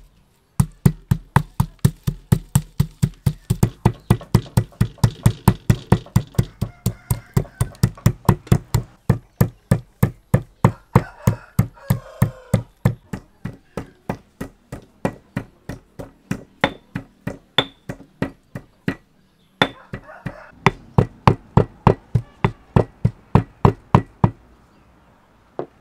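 Stone pestle pounding dried red chillies in a stone mortar, steady strikes at about three a second, with a short pause about three quarters of the way through.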